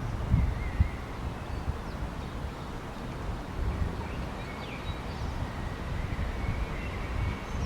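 Wind buffeting the microphone in gusts, with faint bird chirps and whistles, one held near the end.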